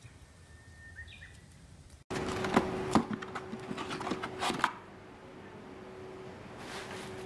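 Cardboard box and bubble-wrap packaging being handled: a quick run of clicks, knocks and rustles starting about two seconds in and easing off just before five seconds, with a faint steady hum underneath.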